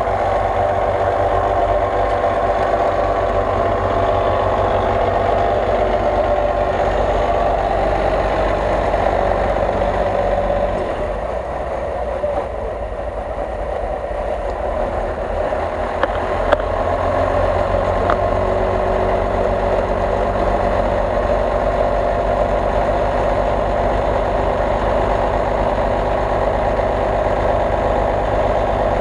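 Off-road vehicle engine idling steadily. It gets a little quieter about 11 seconds in and comes back up around 16 seconds, where two light clicks are heard.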